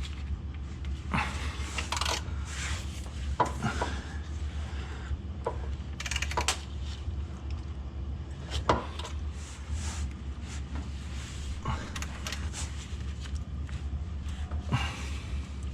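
A wrench working at a stubborn oil drain plug and metal tools being handled: scattered metallic clicks and knocks, over a steady low hum.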